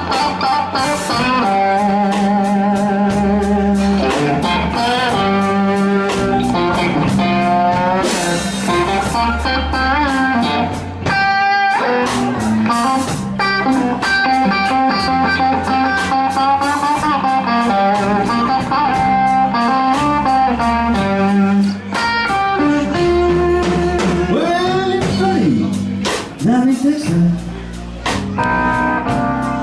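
Slow blues played by a band, with an electric guitar taking the lead: single-note lines with string bends and vibrato over bass and a steady beat.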